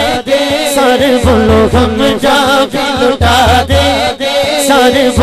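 A man singing a naat, an Urdu devotional song, into a microphone in a long, wavering melodic line. Under it runs a low beat of three quick pulses, repeating about every two seconds.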